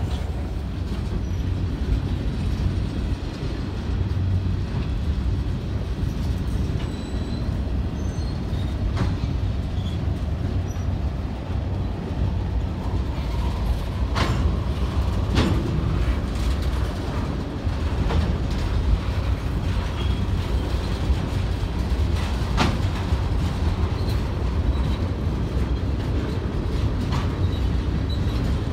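Freight train of boxcars, tank cars and centerbeam flatcars rolling past, a steady rumble of wheels on rail with a few sharp clanks in the second half.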